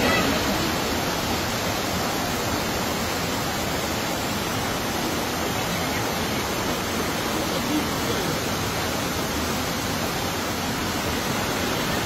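Heavy rain pouring down and muddy floodwater rushing over the ground, heard as a steady, even hiss.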